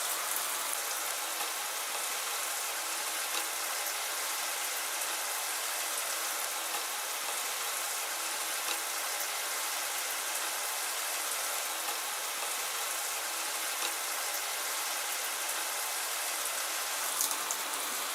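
Fine spray of water running steadily from a hand-held shower head with many fine nozzles, at a pressure the user finds lower than his old head. A brief knock comes near the end.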